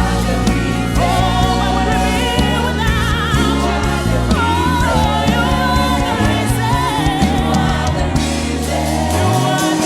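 Live gospel worship music: a lead singer and a choir singing with a band, over steady bass and held keyboard chords, with a bass slide up near the end.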